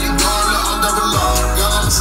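Music with vocals and deep, heavy bass played loud through a pickup truck's car stereo and subwoofer.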